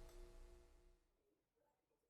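Near silence: the faint last notes of background music die away in the first second.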